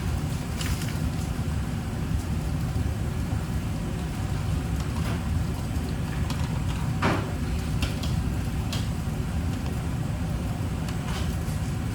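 Steady low rumble with a few light clicks and knocks scattered through it.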